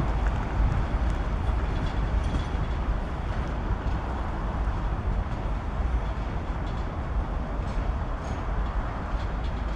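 Electric train running along the tracks, a steady rumble and hiss that eases off slightly as it goes.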